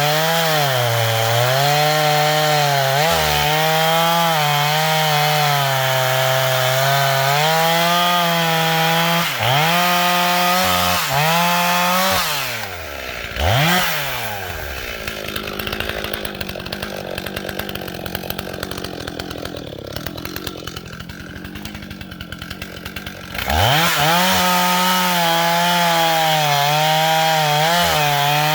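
Rebuilt early Stihl 044 two-stroke chainsaw cutting a grand fir log at full throttle, its engine note dipping and recovering as the chain bites. About twelve seconds in it drops to a much quieter idle for roughly ten seconds, then revs back up and cuts again near the end.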